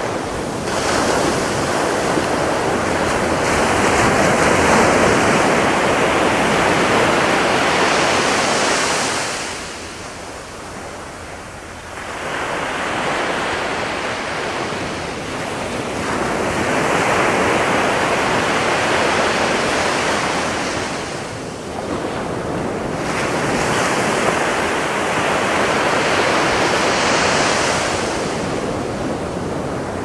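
Atlantic Ocean surf breaking on a sandy beach: waves crash and wash up the shore in long, rolling swells, easing off for a couple of seconds about ten seconds in and again a little past twenty seconds.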